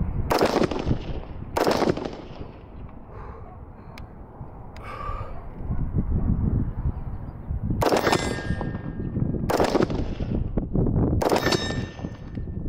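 AR-15 rifle with a 20-inch barrel firing M855 green-tip 5.56 rounds at an AR500 steel plate: two shots near the start, then three more about a second and a half apart from about eight seconds in, the steel ringing briefly after the later hits. Wind rumbles on the microphone throughout.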